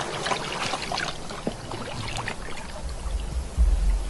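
Water splashing and sloshing in a shallow plastic paddling pool as a honey badger wades and lies down in it, with many small drips and slaps. A loud low thump near the end.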